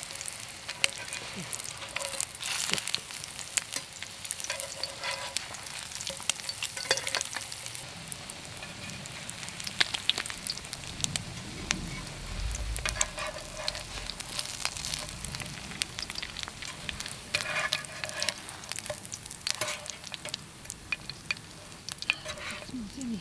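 Panko-crusted crab cakes shallow-frying in hot oil in a pan: a steady sizzle with frequent small crackling pops.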